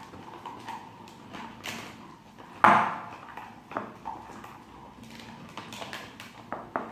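Dried figs and garlic being ground in a hand-cranked mincer, making irregular metallic knocks and clicks with a faint ringing, and one sharp knock about two and a half seconds in.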